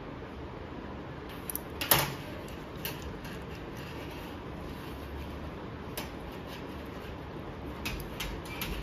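Steady room noise with one sharp metallic click about two seconds in and a few fainter clicks and rubs: steel forceps set down on a stainless steel exam table and gloved hands handling a newborn puppy.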